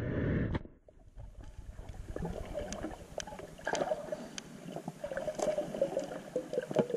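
Loud splashing water at the surface cuts off about half a second in. It gives way to underwater ambience: scattered sharp clicks and crackles over a wavering gurgle of moving water.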